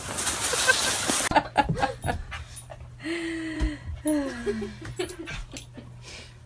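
A loud rush of noise cuts off suddenly about a second in. Scattered clicks and knocks follow, then an animal whining: two short cries about a second apart, the second falling in pitch.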